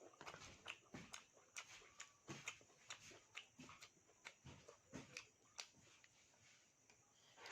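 Faint chewing and lip-smacking of someone eating: an irregular run of short, wet mouth clicks and smacks, a few each second.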